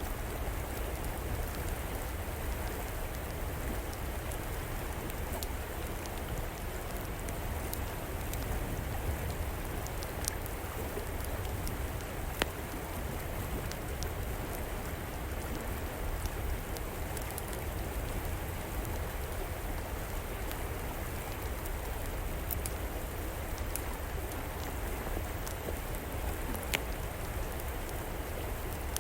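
River water rushing steadily, with the scattered sharp crackles and pops of a wood fire burning in an outdoor fireplace.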